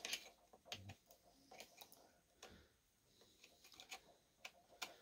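Faint, scattered metal clicks and taps of a screwdriver prying at a stubborn saw chain on a McCulloch D44 chainsaw, working the chain off the bar.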